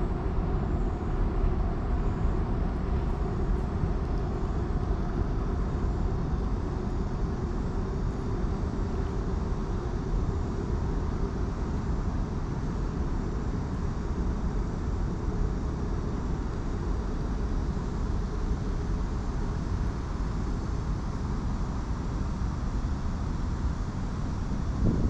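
Steady low rumble of distant vehicles, its middle range slowly fading over the stretch.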